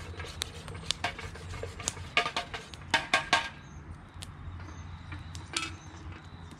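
Metal spoon clinking and scraping against a metal billy while stirring gravy, with a run of sharp ringing clinks. Louder metallic clanks come around three seconds in, as the billy's lid is set on, and a single clink follows a couple of seconds later.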